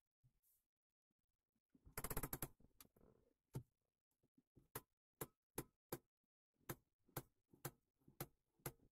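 Nissan Qashqai J10 handbrake lever being worked, its ratchet clicking: a quick run of clicks about two seconds in, then single sharp clicks about two a second, one per tooth. The lever's travel is being checked after the handbrake cables were tightened.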